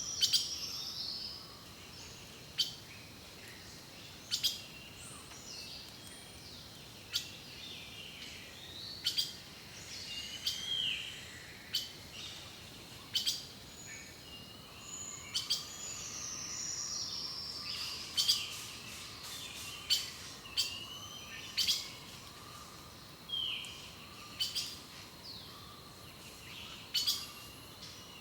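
Several wild birds singing and calling: varied chirps and short whistled, warbling phrases, with frequent sharp single notes every second or two.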